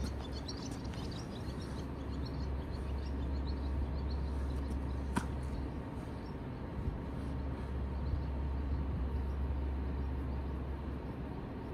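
Outdoor ambience: a steady low rumble, with small birds chirping through the first few seconds and a single sharp click about five seconds in.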